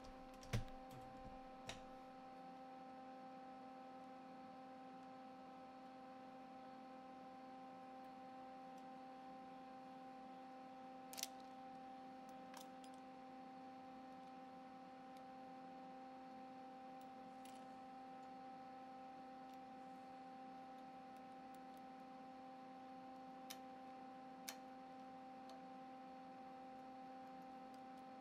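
Near silence: a faint steady hum with a soft knock about half a second in and a few faint, scattered ticks.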